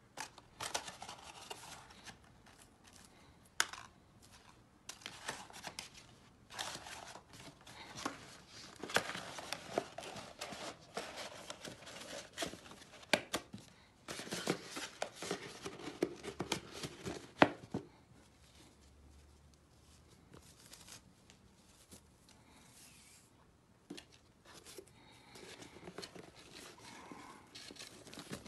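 Black cardstock gift box rustling, scraping and clicking as its flaps are folded and pressed closed by hand, in uneven bursts. It goes quieter about two-thirds of the way in, then the rustling picks up again as a ribbon is handled near the end.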